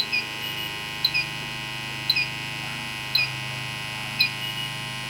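Electronic refrigerant leak detectors idling, giving a short two-note peep about once a second over a steady hum. The slow, unchanged beep rate shows the detector is not picking anything up from the reference leak.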